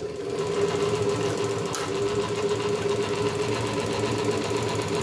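Pfaff 1245 triple-feed (walking-foot) industrial sewing machine, driven by a 750 W servo motor, running steadily and stitching through fabric with a fast, even stitch rhythm over a steady motor hum.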